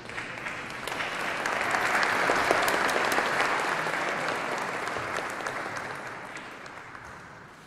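Audience applauding: many hands clapping, swelling over the first couple of seconds and then slowly dying away.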